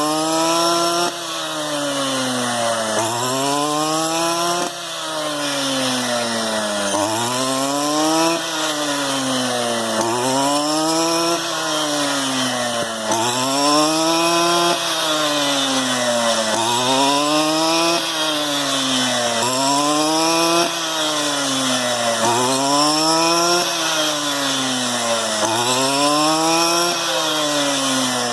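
STIHL FR 230 backpack brushcutter's small two-stroke engine running hard, its pitch climbing and dropping back in a regular cycle about every two seconds as the converted cutter works through rice stalks.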